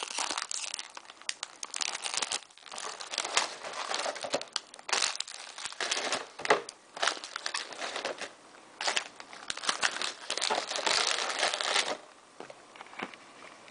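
Cereal packaging crinkling and rustling in irregular strokes as it is handled, stopping about twelve seconds in, with a few faint clicks after.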